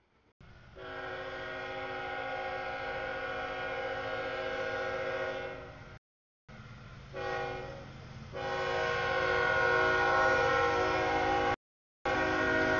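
CSX freight locomotive's air horn sounding for a grade crossing: a long blast of about five seconds, a short blast, then another long blast, over the low rumble of the approaching train. The audio cuts out briefly twice.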